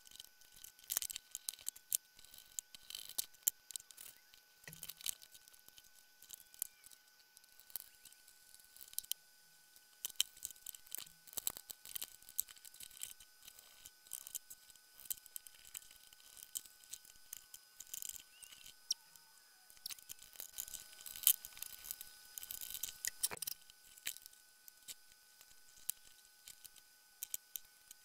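Scattered small clicks and taps of hard plastic and metal parts being handled and fitted together: the housing, gearbox and screws of a Ryobi cordless caulking gun being reassembled with a screwdriver.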